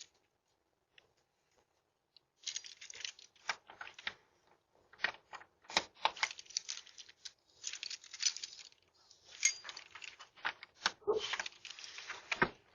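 Irregular clicks, rattles and rustles of objects being handled, starting about two seconds in after a short near-silent stretch.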